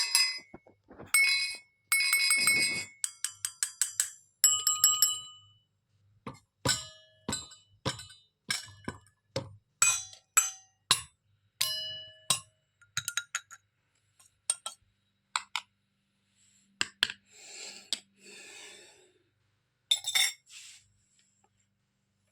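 Small toy kitchen pieces clinking and tapping as they are handled and set down, many of the clicks ringing briefly; a fast run of clicks about two seconds in, and a short rustle late on.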